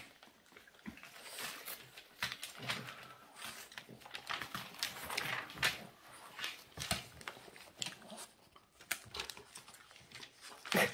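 Paper crinkling and rustling in irregular crackles as a Boston terrier bites and tears at the pages of a paper catalogue.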